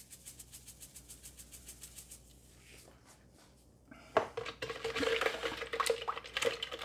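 Black pepper grinder being twisted, a fast, even run of faint clicks for about two seconds. About four seconds in, a spoon starts stirring and scraping the sauce in a plastic measuring jug, louder.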